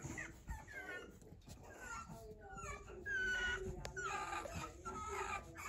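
Pug puppy whining and whimpering in a run of short, high, falling cries, which grow louder and come thicker from about three seconds in.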